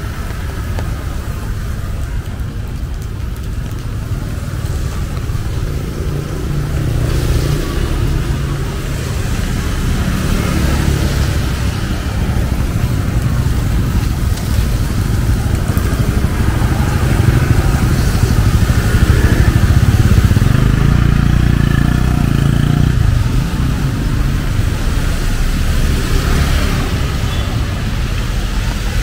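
Street traffic on a rain-wet road: motorbikes and cars passing close by, engines running and tyres on the wet surface, rising to its loudest a little past the middle before easing off.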